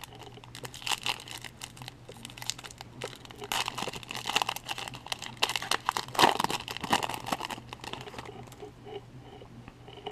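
Foil wrapper of a Topps baseball card pack crinkling and tearing as it is peeled open by hand, an irregular run of crackles that thins out near the end.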